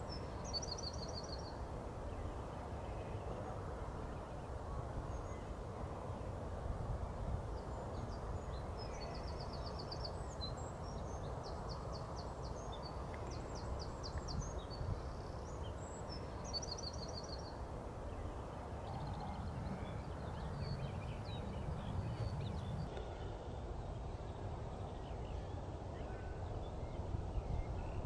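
Open-field ambience: a steady low rumble of wind noise with small songbirds singing in the background, a short rapid trill of high notes repeated several times.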